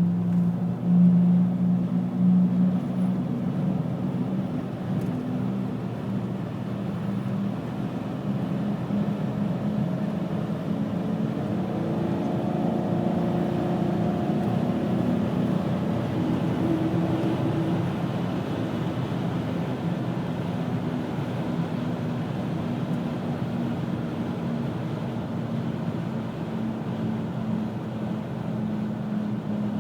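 Steady low humming drone from a 2000 Pontiac Grand Am GT at speed, heard inside the cabin over tyre and road noise. It is a vibration hum that starts around 35–40 mph and gets louder with speed. Its cause is unknown: the owner has already replaced both hub bearings and the driver-side CV joint without curing it.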